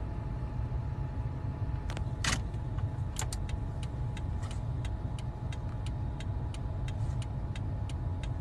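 Car running at idle, heard from inside the cabin as a steady low rumble, with a sharp click about two seconds in and then an even ticking about three times a second.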